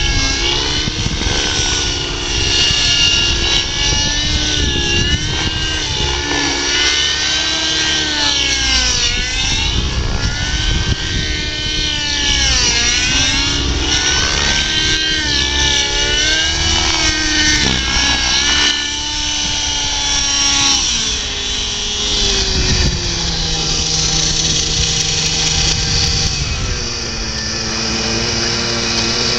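Radio-controlled 3D helicopter in flight, its rotor and motor whine repeatedly swooping up and down in pitch through aerobatic manoeuvres. In the last several seconds the pitch holds steadier and lower.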